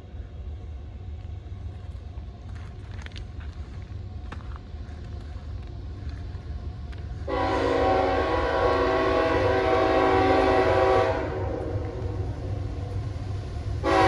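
CSX diesel locomotive's multi-chime air horn on an approaching freight train: one long blast starting about halfway in and held for about four seconds, then a second blast starting right at the end, over a low rumble.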